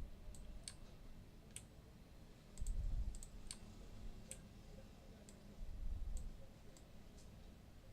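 Computer mouse clicking: about a dozen sharp, irregularly spaced clicks. Two low rumbles, the loudest sounds, come about three and six seconds in.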